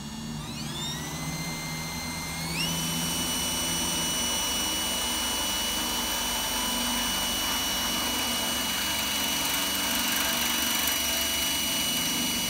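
Electric drill motor winding up in a rising whine over the first few seconds, then running at a steady high pitch as the bit bores through the trunk lid's outer layer of sheet metal.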